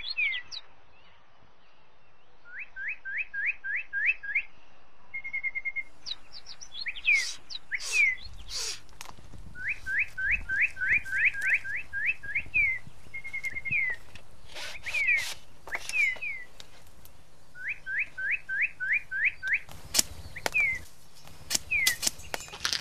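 High-pitched whistled calls repeat throughout, mostly in quick runs of five or six rising notes, with some falling notes and a short steady tone. Several sharp clicks fall among them.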